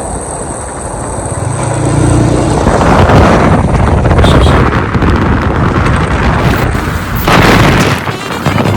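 Loud rumbling road noise from a moving vehicle, with wind buffeting the microphone.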